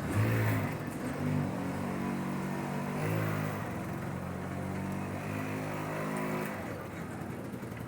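A motor vehicle's engine running for about six and a half seconds, its pitch holding steady and then stepping up or down every second or so before it fades out.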